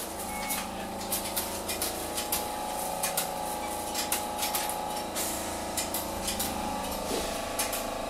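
Hiroshima Electric Railway 800-series tram running, heard from inside the car: a steady whine from its armature-chopper control and traction motors over a low rolling rumble, with frequent sharp clicks and knocks from the running gear.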